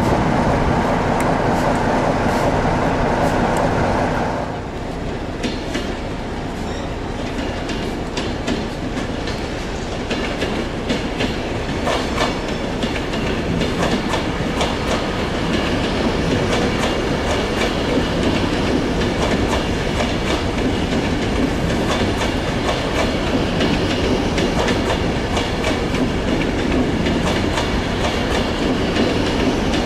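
For about the first four and a half seconds, a Class 47 diesel locomotive's engine running. It then cuts to a Class 390 Pendolino electric train passing, with a steady rumble of wheels on rail and many clicks as the wheels cross rail joints, and a faint wheel squeal.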